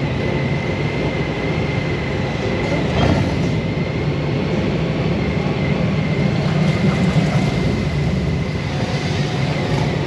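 Motorcycle engine running steadily at low road speed, heard from the rider's own bike as a continuous low rumble with a thin steady high tone over it.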